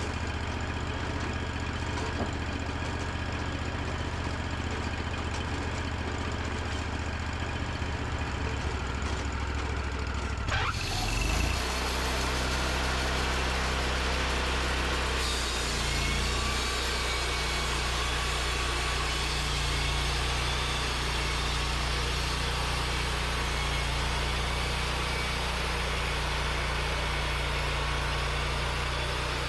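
Portable sawmill's engine idling, then revving up about eleven seconds in and running steadily at speed, with a steady hiss of the blade sawing through a white pine log.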